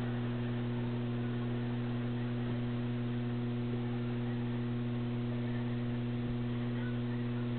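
Steady low electrical mains hum with a few higher overtones, over faint hiss.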